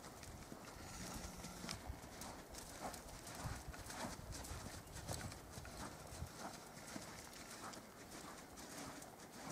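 Hoofbeats of a horse loping on soft arena dirt: a steady run of dull thuds as it circles the barrels.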